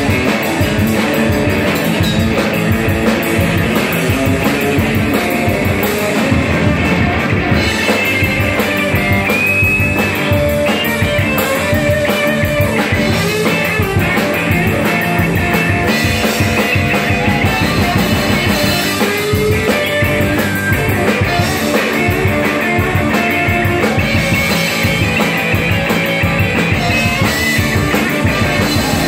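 Live rock band playing loud: a Telecaster-style electric guitar plays lead lines with bent notes over a steady drum-kit beat.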